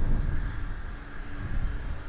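Jet airliner passing low overhead: a deep, uneven engine rumble with a steady higher hiss above it.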